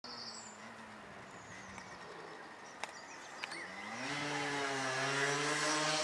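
A motor vehicle's engine running. It rises in pitch a little past halfway through, then holds a steady, louder tone. Two faint clicks come just before the rise.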